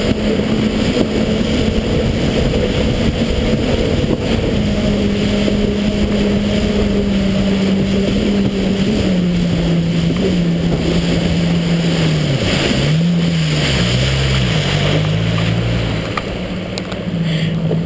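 WaveRunner personal watercraft engine running with a steady drone that drops in pitch about halfway through, then dips and rises several times as the engine speed changes. Water rush and wind on the microphone run underneath.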